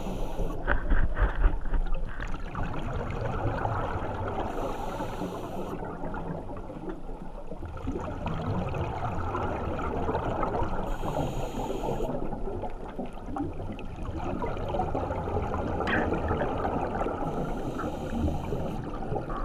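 Underwater sound of a scuba dive under lake ice: a steady rushing, gurgling water noise, with a short hiss about every six seconds, typical of a diver breathing through a regulator.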